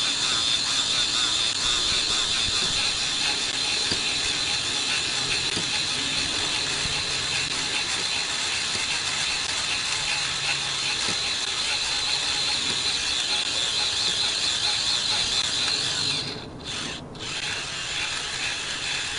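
Fuel pump running steadily as it sucks gasoline back out of an RC helicopter's tank through the secondary clunk line into a fuel can, with two short breaks near the end.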